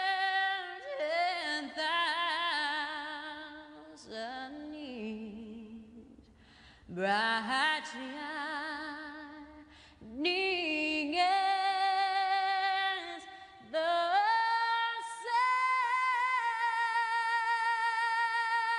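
A woman singing slowly, unaccompanied, in sustained notes with vibrato, ending on a long held note.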